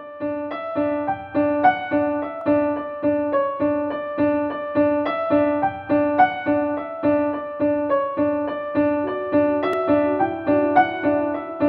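Background music: a piano plays a steady, repeating pattern of notes at an even pulse.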